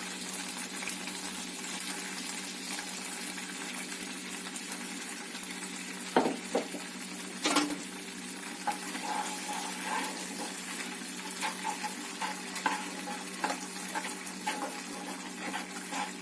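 Sauce of garlic, ginger, chilli sauce, soy sauce and ketchup sizzling in hot oil in a kadai while a spoon stirs it. There are a few sharp knocks of the spoon on the pan at about six and seven and a half seconds in, then lighter, more frequent tapping.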